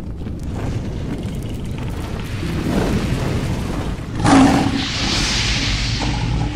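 Cinematic logo-intro sound effects: a low rumble builds, a sudden loud boom hits about four seconds in, then a rushing, fire-like hiss.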